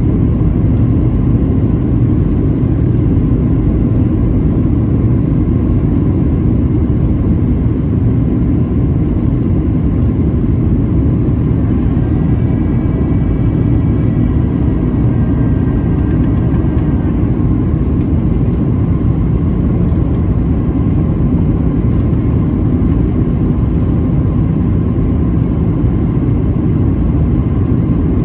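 Loud, steady jet engine and airflow noise heard inside the cabin of a Boeing 737-700 with CFM56-7B turbofans, around the landing. A faint whine of several tones comes in about halfway through and fades a few seconds later.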